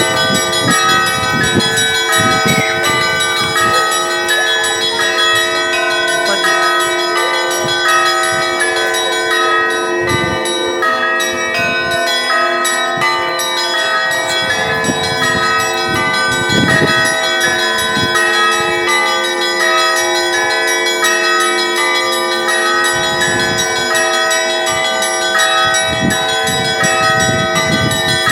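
Russian Orthodox church bells rung together in a continuous peal: many bells struck in quick succession, their tones overlapping and ringing on, with occasional heavier low strokes.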